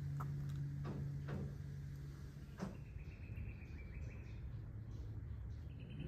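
Quiet outdoor ambience with a few soft footsteps on wooden boardwalk decking, over a low steady hum that stops about two and a half seconds in; a faint high steady tone follows for a couple of seconds.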